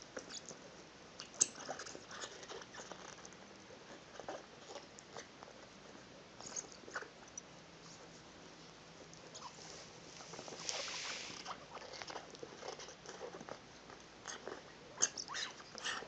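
Shiba Inu gnawing and mouthing a pink toy ball: irregular small clicks of teeth on the ball, with a short hiss about eleven seconds in.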